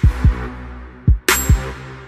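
Background music: an electronic beat with deep bass kick drums that drop in pitch, and a sharp snare crack about halfway through.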